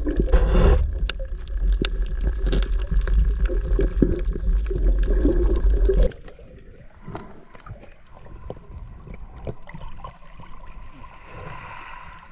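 Underwater sound picked up by a diving camera: a loud low rush of moving water with scattered clicks. About six seconds in it drops sharply to a much quieter, faint crackling.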